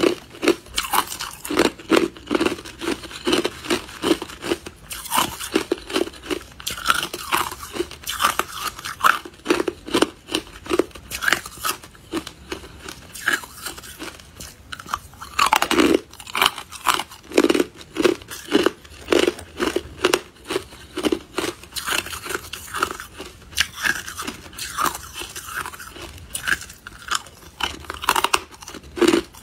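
Chunks of hard clear ice being bitten and chewed: a continuous run of rapid, irregular crunches and cracks.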